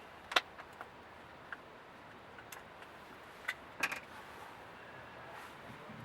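A few sharp clicks and knocks at irregular intervals over a quiet background: the loudest just after the start, and a quick cluster of three near the four-second mark.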